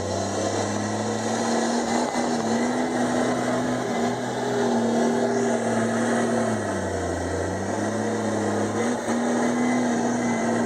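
Komatsu D51EX crawler bulldozer's diesel engine running hard and steady. Its pitch sags briefly and recovers twice, once at the start and again about two-thirds of the way through, as the engine pulls down under load.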